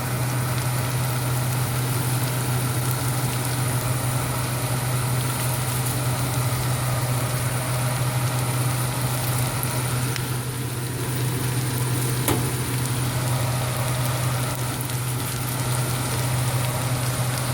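Cabbage and onion frying in a pan, with a steady sizzle, over a constant low hum. A single sharp click about twelve seconds in.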